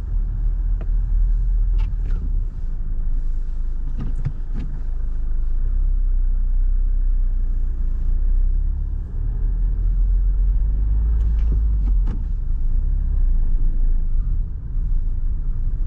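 Steady low rumble of a Toyota car driving slowly, heard from inside its cabin, with a few faint clicks or knocks.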